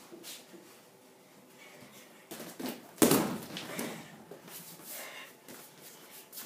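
A child's quick footsteps on a wooden floor, then one heavy thump about three seconds in as she lands a tumbling move on the floor mat, followed by a few lighter steps.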